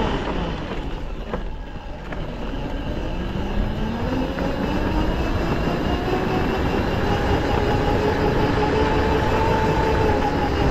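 Quad bike engine easing off, its pitch falling and the sound dipping about a second in. It then revs back up over a couple of seconds and holds a steady pitch at cruising speed, over a constant low rumble.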